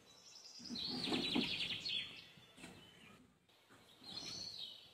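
A small songbird singing outdoors: rapid trills of high notes, about a second in and again near the end. A few soft knocks sit underneath the first trill.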